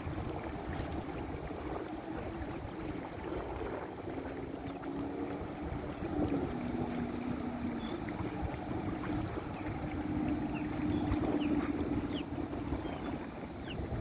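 Wind on the microphone and water along the hull of a sailboat under way, with a faint steady drone that shifts pitch once about six seconds in. A few faint short chirps come near the end.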